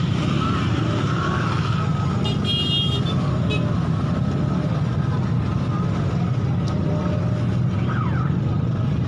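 Motor vehicle engine running steadily at idle close by, a constant low drone. A short high-pitched beep sounds about two and a half seconds in.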